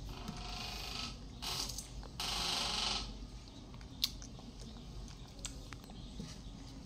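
Orange peel being torn off by hand: a few short bursts of tearing and rustling, the longest about two seconds in, followed by a single sharp click and a few small ticks.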